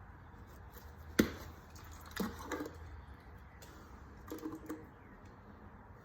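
Hands handling a new oil filter and oil bottle while pre-filling the filter with motor oil: a sharp click about a second in, then a few quieter knocks and clatters, over a low steady hum.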